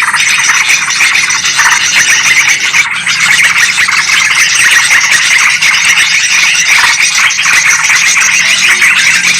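Yellow-vented bulbuls and sooty-headed bulbuls chattering together in a dense, unbroken mass of agitated calls. This is a bird-trapping lure recording of noisy bulbul chatter.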